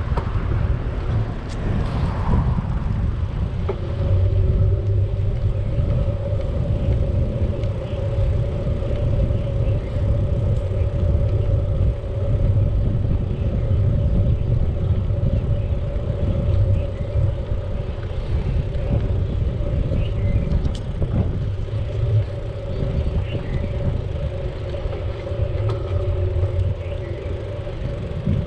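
Wind rumbling over the microphone of a moving bicycle rider, with a steady hum underneath that sets in a few seconds in.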